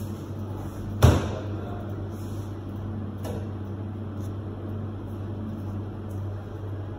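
Steady low hum of commercial kitchen equipment, with one sharp, loud knock about a second in and a lighter click a couple of seconds later.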